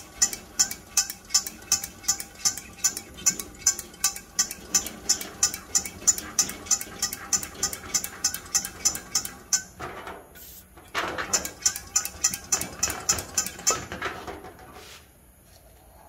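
Hand pump on the fuel tank of a pressurised kerosene stove being stroked to pressurise the tank, an even rhythm of about three to four strokes a second. It breaks off about ten seconds in, starts again about a second later, and stops about fourteen seconds in.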